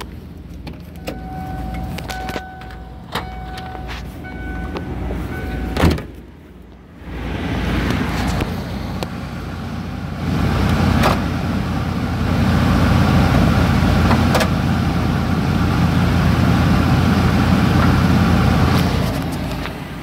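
Ford 460 V8 of a motorhome idling. For the first few seconds a two-tone electronic chime repeats about once a second, and a single sharp thump comes about six seconds in. From about ten seconds on the engine and fan noise is much louder and steady, close to the front grille.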